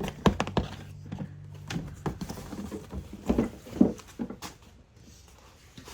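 Irregular light knocks and clicks from a bicycle pump and inner tube being handled.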